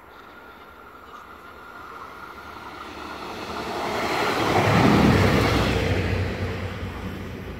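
Regional multiple-unit train passing close by: a rumble of wheels and running gear that builds, peaks about five seconds in as the train goes by, then fades away.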